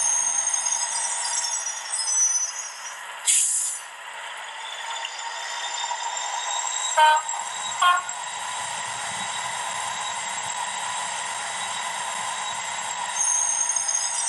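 Class 56 diesel sound file playing through a Hornby HM7000 sound decoder and its small speaker in a model locomotive. The engine sound runs steadily, with a short hiss of air about three seconds in and two short horn blasts about seven and eight seconds in.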